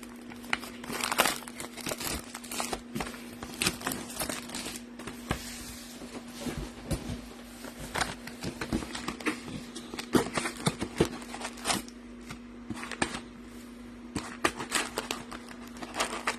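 Plastic shrink wrap and packaging crinkling and tearing in irregular bursts of rustles and clicks as a sealed trading-card hobby box is cut open and emptied. A steady low hum sits underneath.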